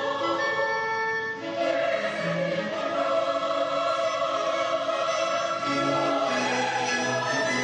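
Mixed choir singing sustained chords with symphony orchestra accompaniment, the harmony shifting a few times.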